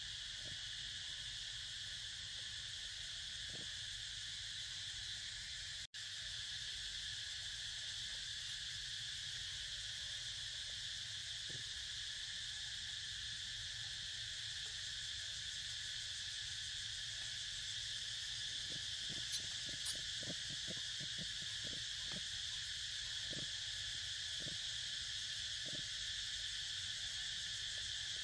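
Steady, even drone of an insect chorus, crickets or cicadas, in two pitches, one high and one lower. It cuts out for an instant about six seconds in, and two short sharp ticks come about two-thirds of the way through.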